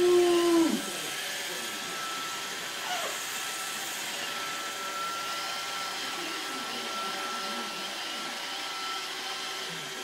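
iRobot Roomba robot vacuum running as it drives across a wooden floor with a baby on top: a steady whirring hum with a thin high whine. Near the very start a short pitched vocal call sounds over it, then stops.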